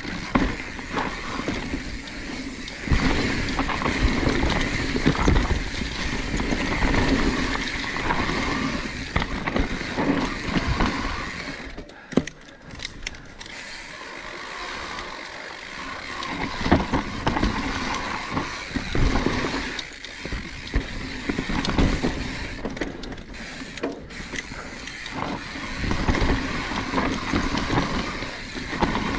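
Mountain bike descending a steep dirt trail: tyres rolling and skidding on dirt, with frequent knocks and rattles from the bike over roots and bumps, easing off briefly about halfway through.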